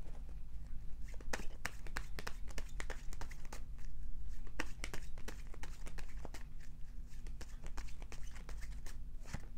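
A deck of tarot cards being shuffled by hand: a continuous run of quick, uneven card clicks and slaps.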